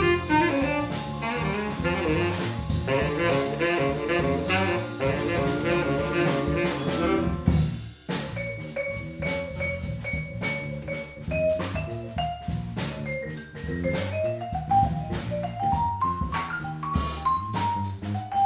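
Jazz-funk instrumental played live by vibraphone, electric bass and drum kit, with the vibraphone soloing. Dense clusters of notes give way, with a brief dip about eight seconds in, to a long held note and then rising runs of single notes over a steady drum beat.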